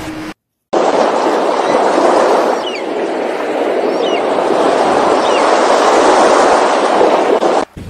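A steady rushing noise with three short, high, wavering bird calls about a second and a half apart. It starts after a brief gap under a second in and cuts off abruptly near the end.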